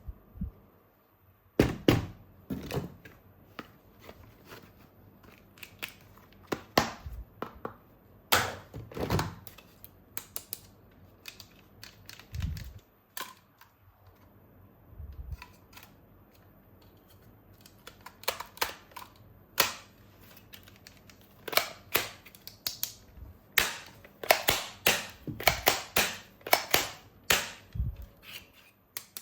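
Hard plastic toy guns and parts being handled during unboxing: many sharp clicks, taps and knocks at irregular intervals, coming thick and fast in the last third.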